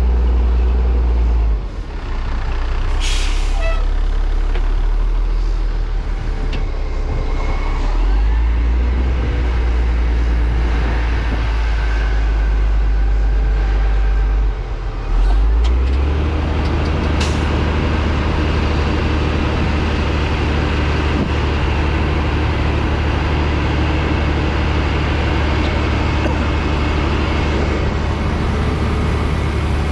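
Heavy diesel engine running steadily with a deep rumble, its note shifting about two seconds in and again around fifteen seconds. A short hiss sounds about three seconds in.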